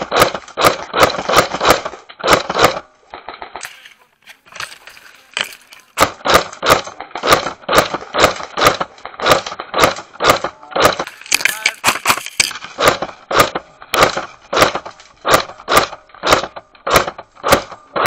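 JG G36C airsoft electric rifle firing single shots in quick succession, about three a second, each a sharp crack from the gearbox cycling. The shots stop for about three seconds after the first couple of seconds, then run on evenly.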